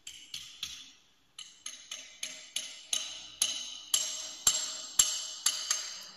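Metal struck over and over in short runs, sharp ringing taps about three a second. There is a short pause about a second in, and the taps space out toward the end.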